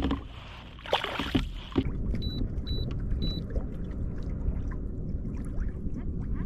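Three short electronic beeps, about half a second apart, from a kayak's handheld remote as trolling gets under way, over the steady low wash of water against the hull. A brief rush of noise comes about a second in.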